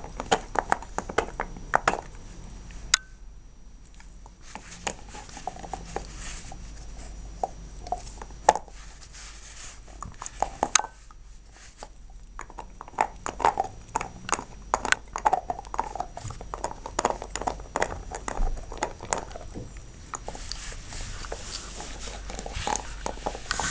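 Border collie gnawing a bone: irregular wet crunching and sharp cracking clicks from its teeth on the bone, in busy bursts broken by two brief pauses.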